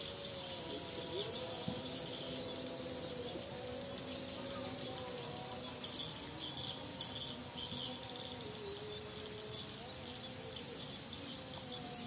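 A flock of munias (emprit) roosting in a cornfield, twittering densely with many high, thin chirps that grow busier about halfway through. A faint, slowly wavering melodic tone runs underneath.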